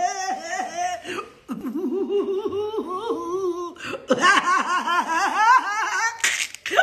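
A person laughing heartily in fast repeated pulses, in three bouts with short breaks about a second in and around four seconds, followed by a brief rush of noise near the end.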